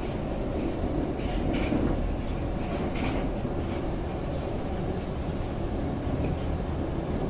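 Moskva-2020 metro train running through a tunnel, heard from inside the car: a steady low rumble of wheels on rail. A few short clicks and rattles come between about one and three and a half seconds in.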